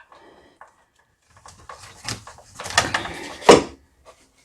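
Rattling and scraping of a steel auger control cable being worked through an opening in a snow blower's frame, with two sharp metal clicks near the end, the second the loudest.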